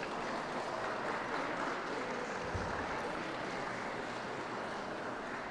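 Audience applauding steadily, the claps merged into an even wash of sound.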